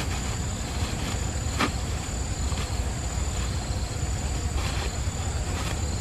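Steady low rumble of wind on the microphone, with an unbroken high-pitched insect drone over it, and one short sharp rustle or click about a second and a half in.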